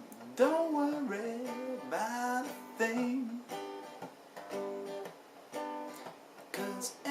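A solo voice singing the closing phrases of a song over a strummed acoustic string instrument. The singing is clearest in the first three seconds, then steadier strummed chords follow.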